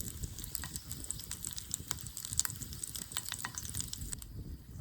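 Crackling and sizzling from a campfire with steak cooking, quick irregular pops over a steady hiss.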